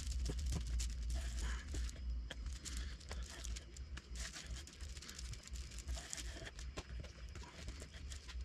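A plastic spreader scraping and squishing Bondo body filler as it is mixed on a plywood board, in quick, irregular scrapes and smacks over a steady low hum.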